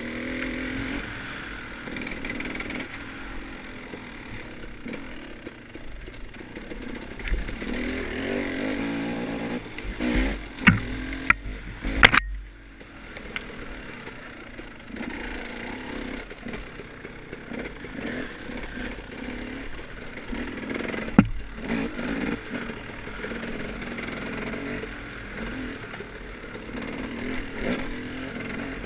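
Off-road dirt bike engine running on a trail, the revs rising and falling with the throttle. Sharp knocks and clatter land about ten to twelve seconds in, and once more around twenty-one seconds.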